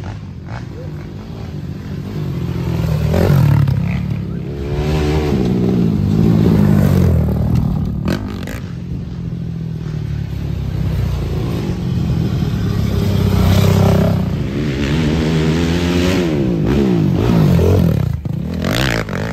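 Race ATV (quad) engines revving hard as several quads accelerate past one after another on a dirt track. The engine pitch climbs through the gears and falls away with each pass. A sudden break near the end brings another quad under power.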